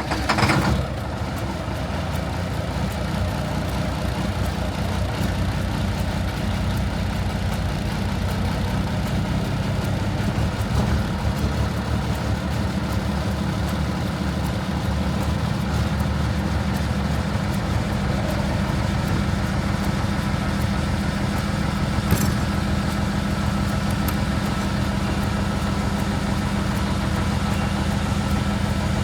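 A vehicle engine running steadily at an even speed, with a brief louder surge right at the start.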